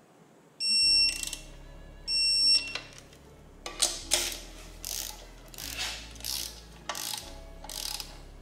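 Snap-on digital torque wrench beeping twice, each a steady high beep of about half a second, signalling that the oil pan bolts have reached the set torque. From about a second and a half later come runs of ratchet clicks as the wrench is worked on the next bolts.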